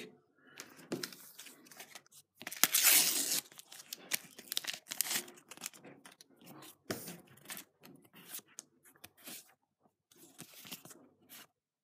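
Paper Panini stickers being handled and flipped through by hand, making quick papery crinkling and rustling, with one longer, louder rustle about two and a half seconds in.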